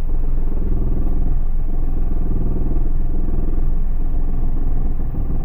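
A Hyundai Xcent diesel car running on the move with a knocking, clattering noise. The noise sounds like injector knock, but the mechanic traces it to a loose part at the wheel and suspension.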